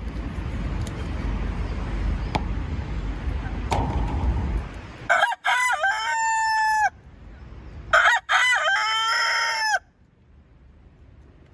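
A rooster crowing twice, each crow about two seconds long with a rising start and a long held note, the second about three seconds after the first. Before the crows there is a steady low rushing noise.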